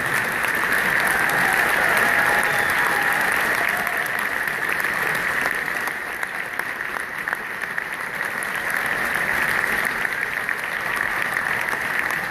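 Large concert audience applauding: dense, steady clapping that dips slightly about halfway through.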